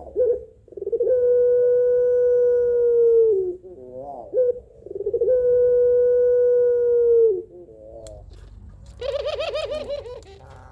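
Puter pelung (domestic ringneck dove) cooing: two long, drawn-out calls, each held on one pitch for about two seconds and dropping at the end, with short wavering notes between them. Near the end comes a quick, rattling run of notes. It is a female calling for a male.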